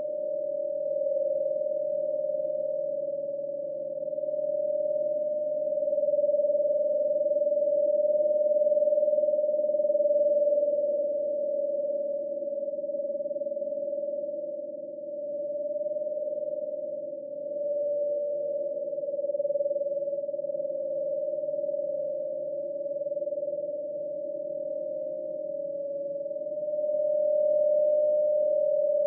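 Synthesized ghost sound effect: a steady, pure, humming tone with a fainter low drone under it, slowly swelling and fading in loudness.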